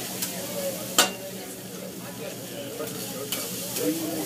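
Food sizzling on a teppanyaki hibachi griddle, a steady frying hiss, with a few sharp metal clacks of the chef's utensils on the hot plate, the loudest about a second in.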